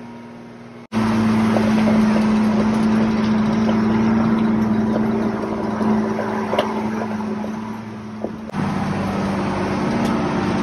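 Engine of an open-sided touring truck running steadily under way, heard from its passenger compartment along with road noise. The sound starts abruptly about a second in and changes briefly near the end.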